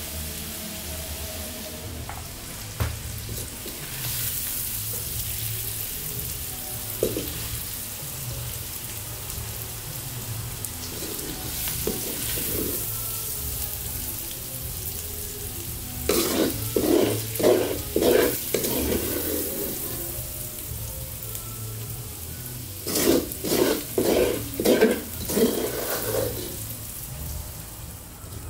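Onions and dried fish sizzling as they fry in a large iron wok, stirred with a spoon. Twice in the second half comes a quick run of louder scraping knocks as the spoon works along the wok to scoop the food out.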